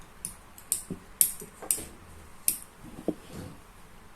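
A trigger mechanism being worked by hand to test the safety lock after its rear adjustment bolt has been tightened. It gives about half a dozen sharp, irregularly spaced clicks, with duller knocks in between.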